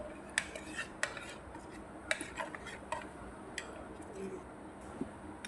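A spoon scraping and clinking against a small bowl as blended spice paste is scraped out onto raw chicken in a saucepan: a scatter of light, irregular clinks and taps.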